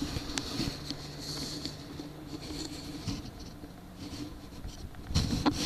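Soft water sounds from a canoe being paddled: drips and light splashes from the paddle, with a cluster of louder splashes near the end.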